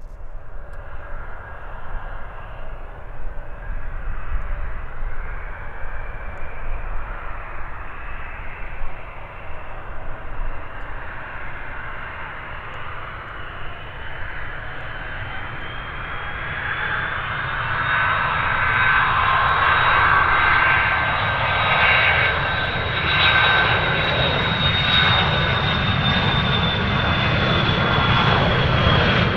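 Dassault Falcon 900EX's three Honeywell TFE731 turbofan engines spooling up for take-off. A high whine rises in pitch through the first half and then holds steady at its top pitch, with the engine noise growing louder as the jet starts its take-off roll.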